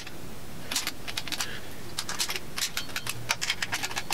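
Socket ratchet clicking in short runs as the intake manifold bolts on an LS 5.3L V8 are run down in sequence.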